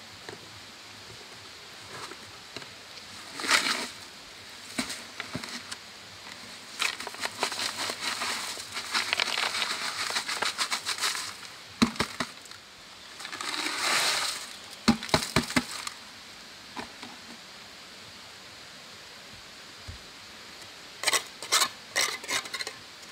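Wet cement mortar being scraped and scooped out of a plastic bucket, with a run of scraping and clicking, then the mortar slid out of the tipped bucket in one smooth rush. Near the end, a steel trowel knocks and scrapes several times against a stone.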